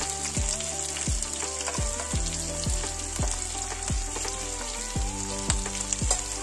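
Oil sizzling steadily in a frying pan as sliced button mushrooms are tipped in from a steel plate onto frying onions and chillies, under background music with a steady drum beat about twice a second.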